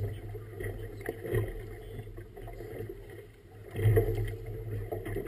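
Race committee motorboat's engine running steadily under the noise of choppy water, with a louder knock about four seconds in.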